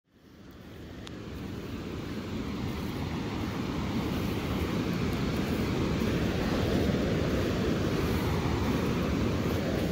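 Steady low rush of ocean surf and wind on the beach, fading in over the first few seconds.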